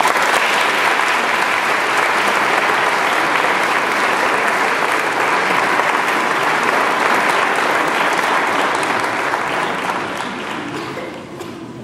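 Audience applauding, starting all at once and fading away over the last couple of seconds.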